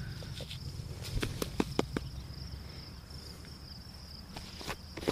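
Crickets trilling steadily. A quick run of sharp taps and clicks comes between about one and two seconds in, and another near the end, as a dug-up spoon is handled in loose soil.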